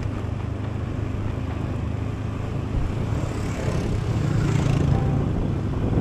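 Scooter engine running while riding, with steady road and wind noise. The sound grows louder, with more hiss, from about three seconds in.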